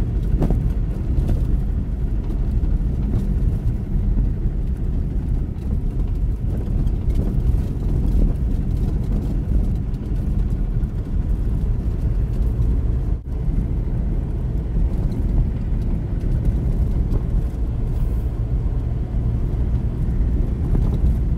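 Ambassador car driving along a rough forest road, heard from inside the cabin: a steady low rumble of engine and road noise.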